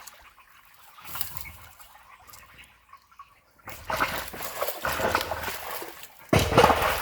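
Water splashing as sticks and mud are pulled from a beaver dam blocking a culvert. It is quiet for the first half, then comes as irregular splashing and rustling, with a sudden louder splash near the end.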